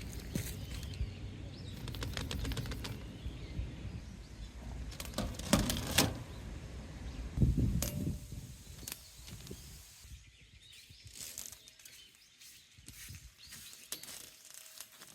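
Balls rolling through a corrugated bellows-hose marble run make a fast, rattling run of clicks over a rumble. There are a few louder knocks about six and seven and a half seconds in. The sound then thins to lighter scattered ticks.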